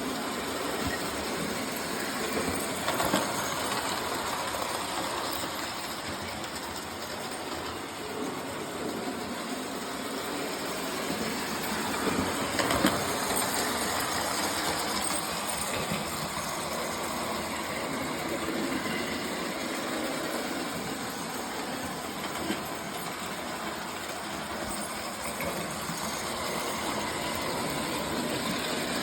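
Lionel 259E prewar toy steam locomotive running around the track: steady whir of its electric motor and gears with wheels rumbling on the rails. A louder click comes about three seconds in and again around thirteen seconds.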